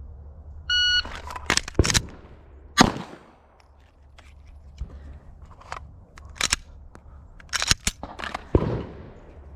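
A shot timer's start beep, then a pistol is loaded from an unloaded start and a string of pistol shots follows in uneven groups, the loudest a little under three seconds in.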